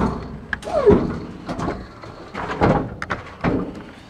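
Electric pallet truck being driven up a metal flap into the storage box under a trailer: a run of irregular knocks and clunks, with a short falling squeak about a second in.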